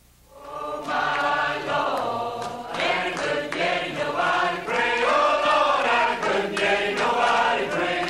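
Mixed choir of men's and women's voices singing an old spiritual together. The singing begins about half a second in.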